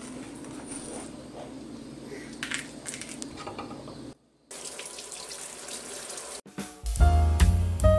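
A knife slicing a yellow peach on a wooden cutting board, with a few soft cuts. After a break, tap water runs over blueberries in a mesh strainer for about two seconds. Loud background music with a beat comes in near the end.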